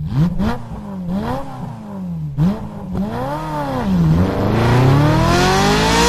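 VAZ-2106 Zhiguli's four-cylinder petrol engine revved in four short blips about a second apart, each rising and falling in pitch, then revved in one long steady climb in pitch from about two-thirds of the way in.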